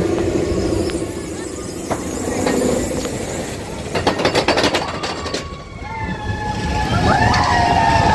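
Expedition Everest roller coaster train running along its track, with a fast rattling clatter about halfway through and wheel squeal near the end.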